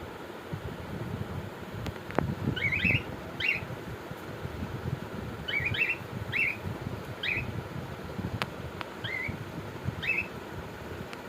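Cockatiels chirping: short, quick rising chirps in small clusters every second or two, with a few sharp clicks and a low rumbling noise underneath.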